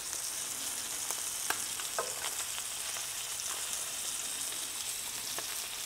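Fish fillets sizzling steadily in butter and olive oil in a cast-iron skillet, nearly cooked through. A couple of light clicks sound about a second and a half and two seconds in.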